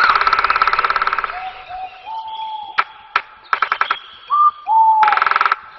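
A songbird singing, mixing rapid buzzy trills with clear whistled notes that glide up and then down. The first trill is the longest and the loudest, with shorter trills at about three and a half seconds and again near the end.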